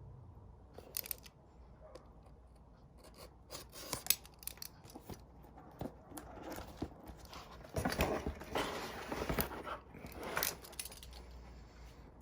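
Cardboard box and packaging being handled as the tablet is lifted out: scattered clicks and light rubbing, with a denser spell of scraping and rustling about two-thirds of the way in.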